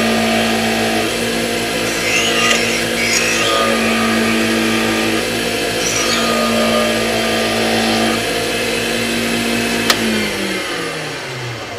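Wood lathe motor running with a steady hum while a burning wire is held against the spinning wooden handle, adding a rasping hiss at times. About ten seconds in a click comes, and the lathe winds down, its pitch falling as it slows.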